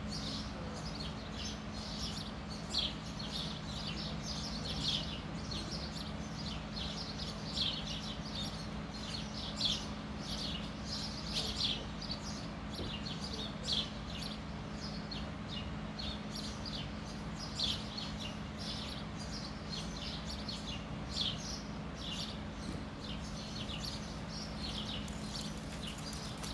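A small bird chirping in short, quick calls again and again, over a steady low hum.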